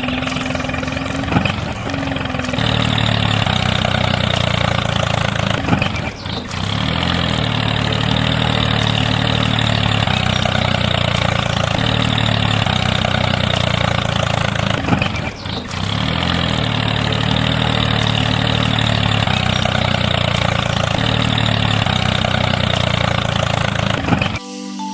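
An engine running steadily with a pulsing low chug, cutting out briefly twice along the way.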